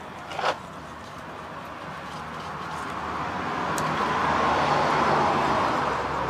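A motor vehicle passing by, its noise swelling over a few seconds and fading near the end. A brief sharp squeak comes about half a second in.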